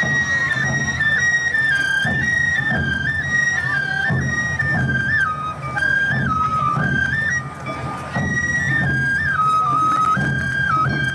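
Awa Odori festival music: a shinobue bamboo flute playing a high, stepping melody, with drum beats pulsing underneath.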